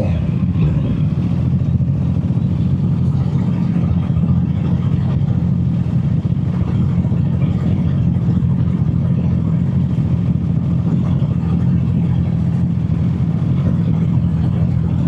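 Honda CB650R's inline-four engine running at a steady speed while the motorcycle is ridden, picked up by a microphone in the rider's back pocket.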